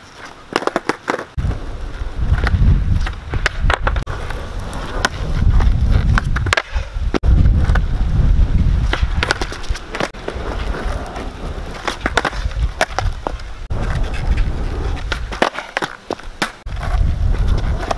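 Skateboard with loose trucks rolling on a rough asphalt court in several separate runs of low rumble, with sharp wooden clacks of the tail popping and the board landing and slapping the ground during ollie and kickflip attempts.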